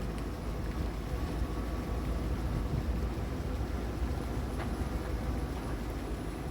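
A vehicle driving, with the steady low rumble of engine and road noise.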